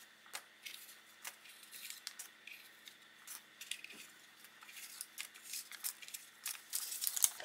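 Paper banknotes rustling and crinkling as dollar bills are pulled from a clear plastic holder and leafed through by hand: faint, scattered soft crackles that grow busier near the end.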